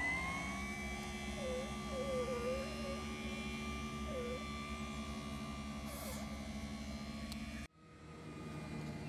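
Electric motor of an Enduro Premium caravan mover whining, its pitch settling in the first second and then holding steady over a low hum. It cuts off abruptly near the end.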